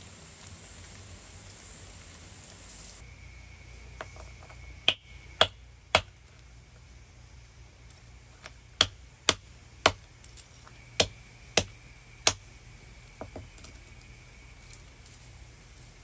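Hand-held hammer stone striking a lump of iron-smelt slag on a flat stone anvil, sharp irregular knocks crushing it: three blows, a pause, then a run of about eight more.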